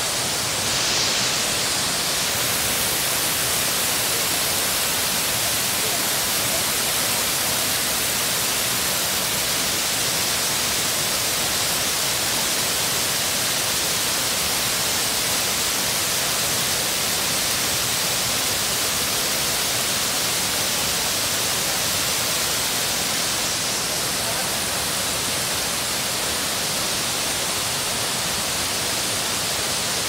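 Steady roar of a tall waterfall: a dense, even rush of falling water, heaviest in the hiss range, unchanging throughout.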